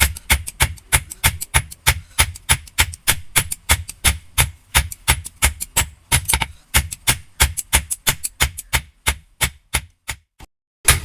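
Rapid, even hammer strikes on steel, about five a second, as a blacksmith works the blade of a chirava (coconut scraper). Near the end the strikes thin to a few scattered taps and stop.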